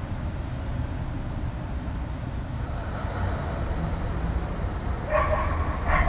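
Two short pitched animal calls, about a second apart near the end, over a steady low outdoor rumble.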